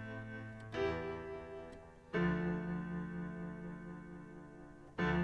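Soft background piano music: three slow chords, struck about a second in, about two seconds in and near the end, each left to ring and fade.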